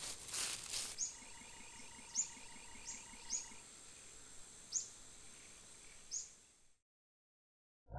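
Rainforest ambience: a steady high insect drone and pulsing insect chirring, with short bird chirps every second or so. A soft rush of noise in the first second, and the whole soundscape fades to silence about a second before the end.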